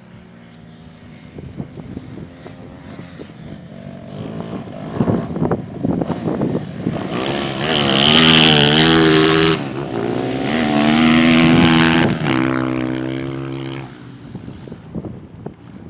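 Motocross dirt bike engine revving hard as it rides past. The engine pitch rises and falls, with a brief drop in revs about midway. It builds to its loudest in the middle and falls away a couple of seconds before the end.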